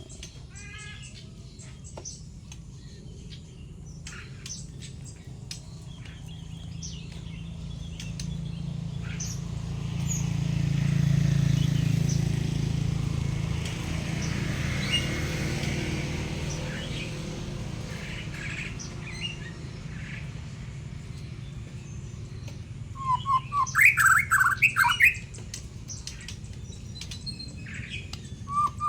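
White-rumped shama (murai batu) chirping in scattered short notes, then a run of loud calls about three-quarters of the way through and again at the end. A low rumble swells up and fades away in the middle.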